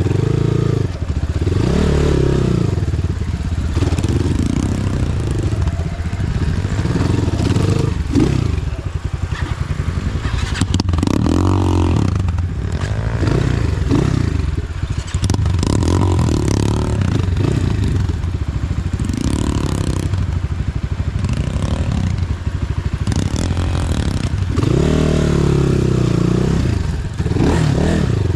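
Engine of an off-road motor vehicle running while driving over rough ground, its revs rising and falling again and again, with rattling and clatter.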